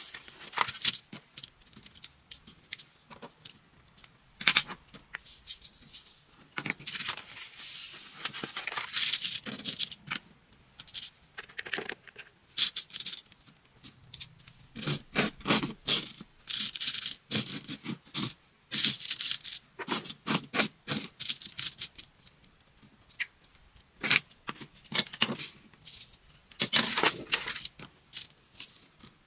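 Sand-art handling sounds: a paper sheet rustled and tipped with loose coloured sand shaken off it, sand pattering, and a brush scraping on the sheet. They come as irregular taps and clicks mixed with brief hissing swishes.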